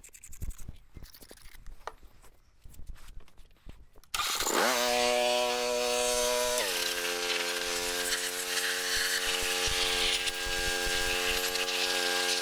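Faint scratching, then about four seconds in a motor-driven machine starts abruptly and spins up to a steady running note. About two seconds later its pitch drops as it takes load, and it runs on steadily.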